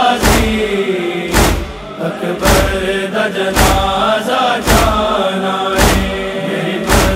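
Male chorus chanting a slow, drawn-out noha refrain without instruments, over a heavy thump about once a second that keeps time: the matam beat of Shia mourning recitation.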